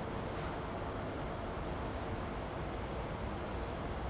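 Steady background hiss with a faint, constant high-pitched whine and a low hum: room tone, with no distinct event.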